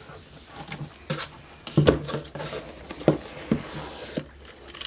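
A cardboard laptop box being handled and its lid lifted off: a scatter of light knocks and rubs of cardboard, the sharpest about two and three seconds in.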